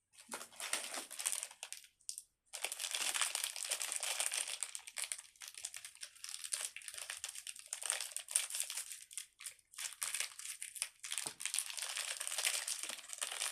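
Packaging crinkling continuously as small packets are torn open and handled, with a short pause about two seconds in.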